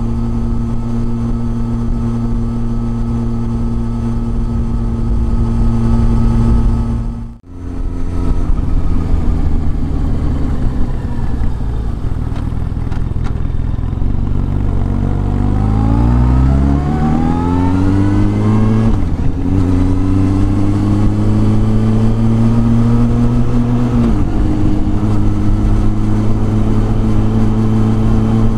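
Inline-four sport motorcycle engine heard from the rider's seat, running at a steady cruise with a brief cut in the sound about a quarter of the way through. Just past halfway the revs climb for a few seconds as the bike pulls away, then they dip briefly at a gear change and settle into a steady cruise.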